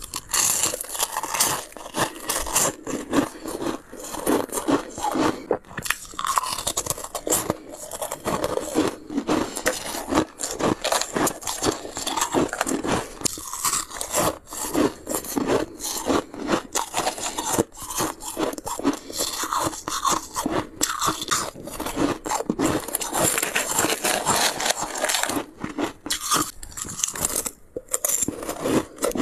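Crunchy ice being bitten and chewed: a dense, unbroken run of sharp crunches, several a second, as the pieces crack between the teeth.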